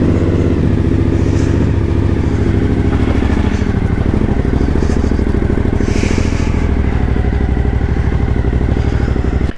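Suzuki V-Strom motorcycle engine running steadily at low revs, with a rapid, even pulse of firing strokes, as the bike rolls off slowly.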